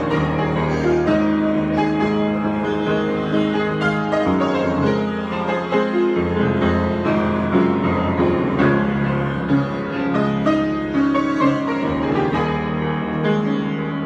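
Solo grand piano being played in an improvisation, with several notes held together as chords under moving lines, continuing steadily throughout.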